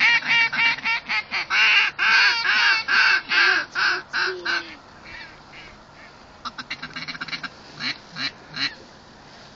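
Duck call blown in a loud series of about ten drawn-out quacks, followed after a short pause by a quicker run of short, softer notes, a call to draw in passing ducks.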